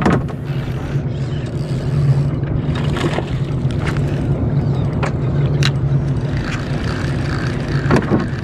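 Fishing boat's engine running steadily at a constant pitch, with a few sharp knocks midway.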